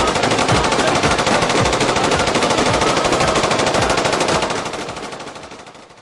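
Sustained rapid machine-gun fire, a fast continuous rattle of shots that fades out over the last second and a half.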